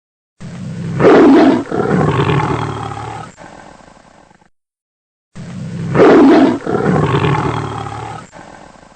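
Big cat roaring, the same roar heard twice about five seconds apart, each a loud opening bellow that tails off into lower grunting.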